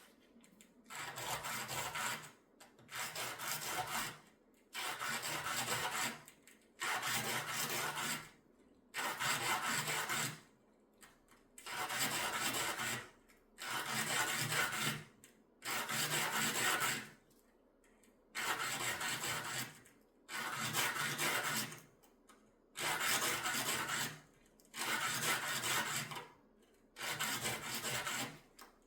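A piece of jewelry being hand-sanded with fine sandpaper: about thirteen even rubbing strokes, each about a second and a half long, separated by short pauses.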